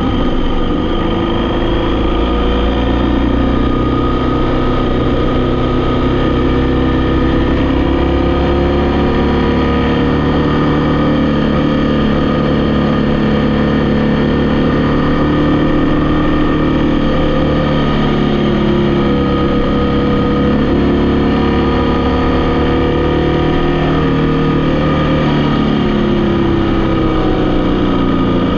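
Vehicle engine running while driving, its pitch slowly rising and falling several times with speed and gear.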